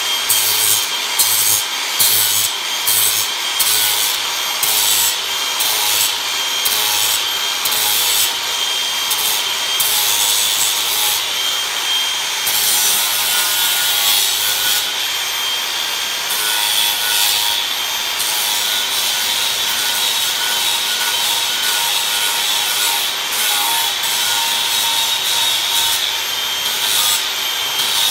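Angle grinder carving into oak, running steadily with a constant high whine while it is worked back and forth against the wood in repeated strokes, about two a second at first.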